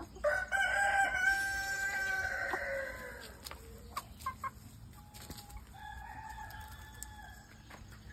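Rooster crowing: one long crow of about three seconds that falls in pitch at the end, then short clucks, then a second, fainter crow about five seconds in.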